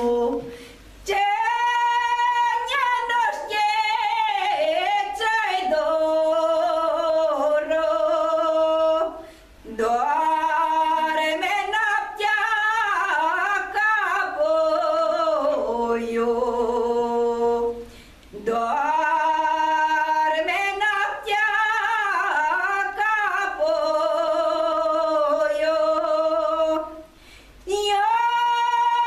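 A woman singing a Maramureș folk song solo and unaccompanied, in long phrases of held, wavering notes with short pauses for breath between them.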